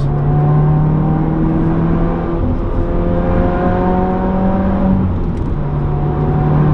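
2015 Subaru WRX's turbocharged 2.0-litre flat-four, breathing through a muffler-delete exhaust, pulling hard under full throttle. Its note climbs steadily in pitch, then breaks about five seconds in before settling again.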